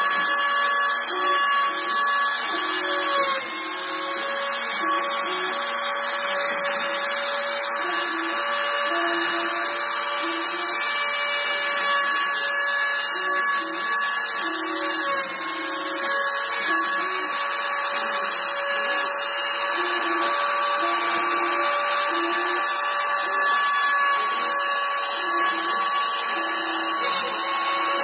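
CNC router spindle running with a steady high whine while machining, its pitch sagging briefly twice under the cut. Lower tones under it change in steps as the machine moves.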